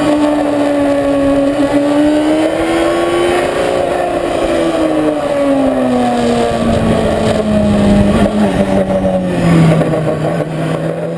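Onboard sound of a Honda sport motorcycle's engine at track speed, with rushing air. The engine's pitch rises and falls gently through the corners, then drops steadily through the second half as the revs come down.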